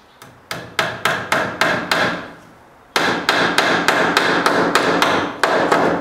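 A hammer driving a cable staple into a wooden wall stud to fasten Romex cable. Two quick runs of sharp strikes, about three or four a second, with a pause of about a second in the middle.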